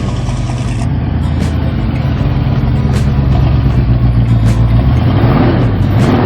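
Engine of a 1976 GMC High Sierra pickup running steadily, a little louder in the second half.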